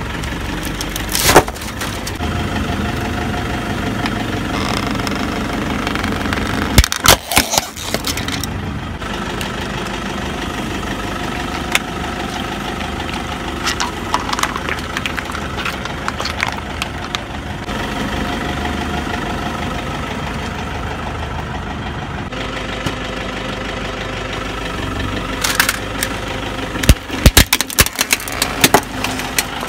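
Car engine idling steadily while the slowly rolling tyre crushes objects, with sharp cracks and crunches about a second in, about seven seconds in, and a quick series near the end.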